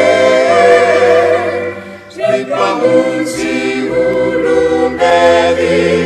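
A small mixed group of voices singing a Malagasy Lutheran hymn in harmony, holding a long note with vibrato, pausing briefly for breath about two seconds in, then starting the next phrase.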